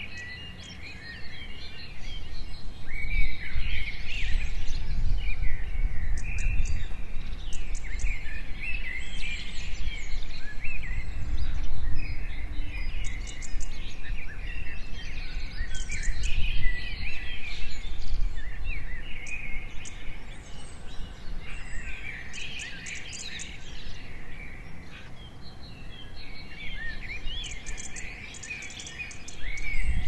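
Many small birds chirping and twittering in quick overlapping calls, over a low rumble.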